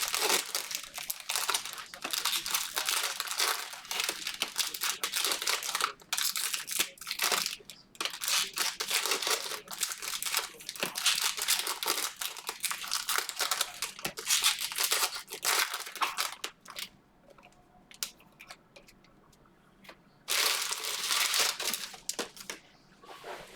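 Plastic wrapping being crinkled and torn by hand in dense crackling spells, stopping for a few seconds about three quarters of the way through, then resuming briefly.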